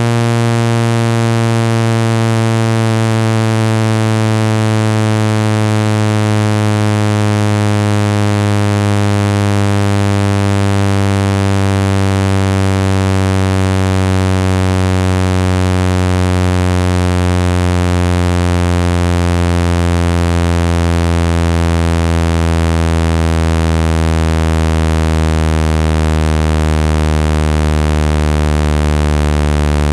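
Synthetic speaker-cleaning tone, a loud low buzzing tone with many overtones that slowly falls in pitch, played to vibrate water and dust out of a phone speaker.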